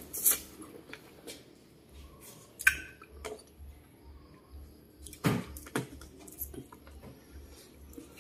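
Eating sounds: chewing and smacking on small black berries bitten off a sprig, with a few short, sharp mouth clicks and sprig rustles scattered through.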